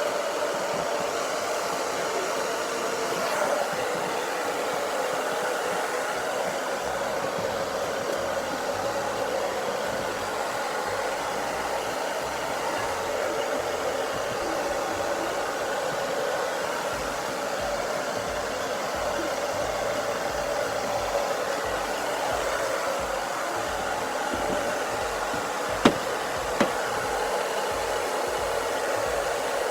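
Hair dryer running steadily while blow-drying a person's hair, with two sharp clicks near the end.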